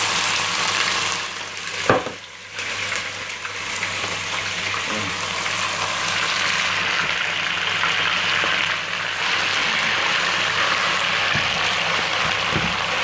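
Raw chicken thigh pieces sizzling in smoking-hot oil in a pot, a loud steady hiss as the meat starts to sear. There is a short knock and a brief dip in the sizzle about two seconds in.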